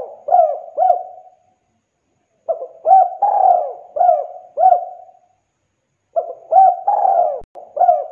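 Spotted dove cooing its song phrase, a run of about five short coos, each dipping in pitch. The end of one phrase, a full phrase about two and a half seconds in, and another starting about six seconds in.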